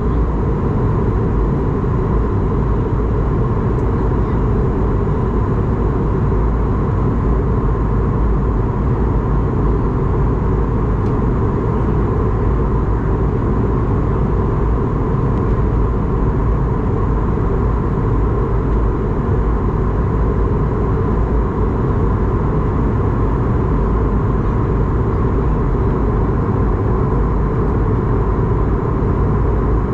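Steady cabin noise inside an Airbus A220-300 in flight: the even drone of rushing air and its Pratt & Whitney PW1500G geared turbofan engines, with no change in pitch or level.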